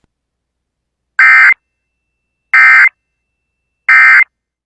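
Emergency Alert System SAME end-of-message data bursts: three short, loud digital squawks about 1.3 seconds apart, signalling the end of the alert.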